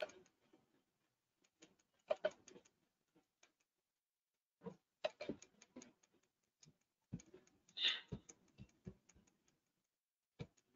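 Faint computer keyboard keystrokes and mouse clicks in scattered clusters, with a denser run of keystrokes in the second half.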